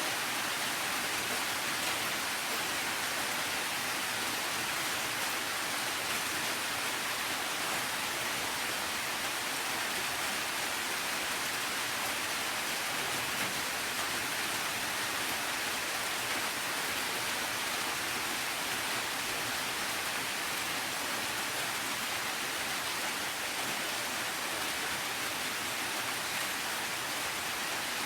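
Steady heavy rain falling, an even hiss with no distinct drops or thunder.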